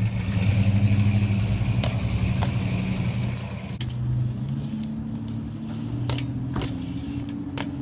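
A motor vehicle's engine running steadily with a low hum, with several sharp clicks and knocks from a BMX bike, two of them about six seconds in as the rider's tyres hit a wall.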